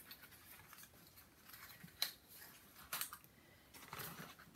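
Faint handling of small cardboard boxes on a covered board: soft rubbing and scraping, with three light taps about a second apart as a box is pressed down and the others are shifted.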